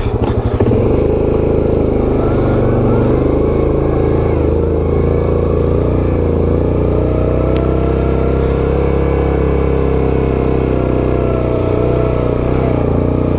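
Yamaha Grizzly 700 ATV's single-cylinder four-stroke engine running under throttle, revs picking up in the first second and then held fairly steady with slight rises and dips.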